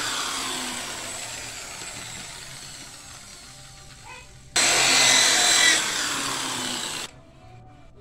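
Electric hand drill running in two bursts, drilling through sheet steel from an old refrigerator body. The first run starts suddenly and trails off over a few seconds; the second starts about four and a half seconds in and cuts off suddenly about seven seconds in.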